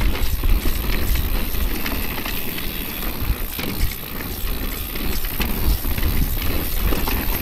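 Orbea Rise e-mountain bike rolling down a rocky gravel trail: tyres crunching and rattling over loose stones, with the bike clattering over the bumps. A steady low wind rumble on the microphone runs under it.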